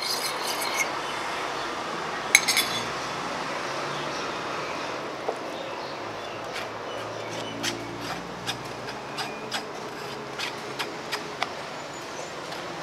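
A fork clinking against a bowl while seasoning is stirred, with one sharp clink about two seconds in. Then scattered light taps and knocks as noodles are tipped from a metal mesh strainer and pushed out with a wooden spoon.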